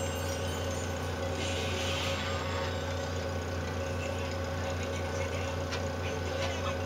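Treadmill motor and belt running with a steady low hum. A brief scraping hiss comes about a second and a half in as the cat paws at the moving belt, with a few light taps near the end.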